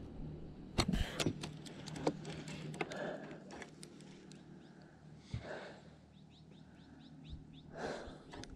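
A few sharp clicks and knocks from a spinning rod and reel being handled close by, with birds chirping; about six seconds in, a quick run of short descending chirps.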